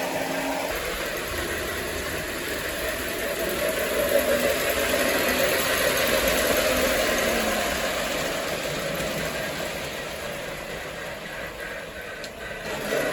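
Marx toy electric train running on three-rail track with its Sound-O-Power steam sound: a steady, noisy mechanical chuffing. It gets louder about four seconds in and fades toward the end as the train comes near and moves away.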